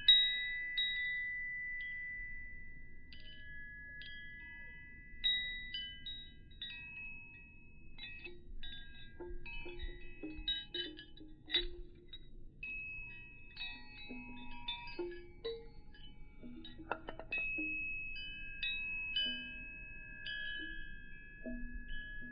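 Wind chimes struck again and again, their tones ringing on and overlapping, with a cluster of quick strikes around the middle. Short low blips sound underneath.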